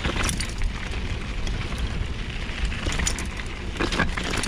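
Mountain bike riding down a dry, loose dirt trail: wind buffeting the camera microphone over the crackle of tyres on gravel and the bike rattling, with a few sharp knocks from bumps.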